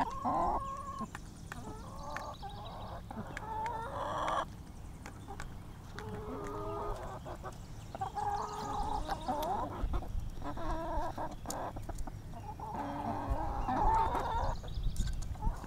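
A flock of hens clucking and chattering over and over as they feed, with many light clicks of beaks pecking at seed in the feed pan.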